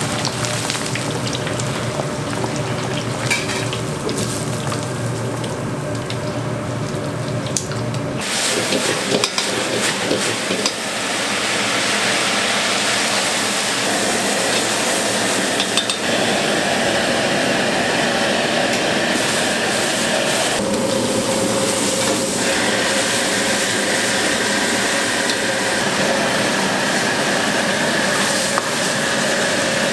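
Hot oil bubbling in a wok as pork pieces deep-fry and a wire strainer stirs them, over a steady low hum; about eight seconds in the hum stops and loud sizzling takes over as vegetables and then sauced fried pork are stir-fried in a hot wok, with a metal ladle scraping and clanking against the wok.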